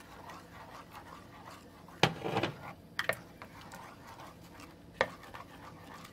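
A spoon stirring ingredients in a crock pot, knocking sharply against the pot three times, the first knock followed by a short scraping rattle.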